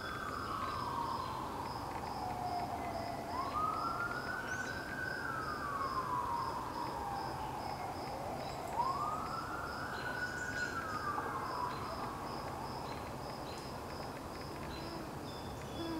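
A siren wailing, its pitch sweeping slowly up and down about three times before it fades out around two-thirds of the way through. A steady, evenly pulsing high tone runs underneath.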